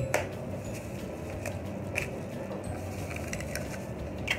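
Eggs being cracked over a wok of boiled chicken feet: a few light cracks and taps of eggshell, about two seconds apart.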